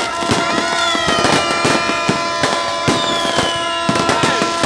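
Fireworks going off in quick succession: many sharp bangs and crackles, with whistles falling in pitch that recur every second or two.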